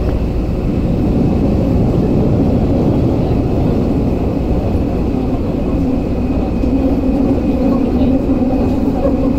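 Running noise heard from inside a Tokyu 8500 series subway car moving at steady speed in the tunnel: a loud, even rumble of wheels on rail with a steady hum and a faint high tone above it.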